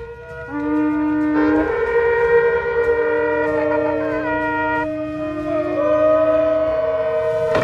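Several shofars blown together in long, held blasts at different pitches, overlapping and starting and stopping at staggered times. The sound dips briefly at the start, then the blasts build up about half a second in.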